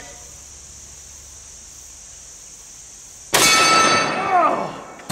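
A single shot from a .458 Lott rifle about three seconds in, followed at once by a steel target ringing with a clang that dies away over about a second and a half.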